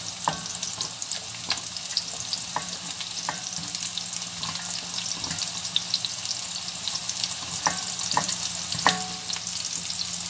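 Sliced onions sizzling in hot oil as they are scraped from a bowl into a frying pan. A spatula scrapes the bowl and gives a few light clinks along the way.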